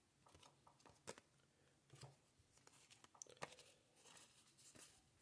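Faint handling of glossy trading cards: soft sliding rustle and a few light ticks as cards are slid one behind another in the hands.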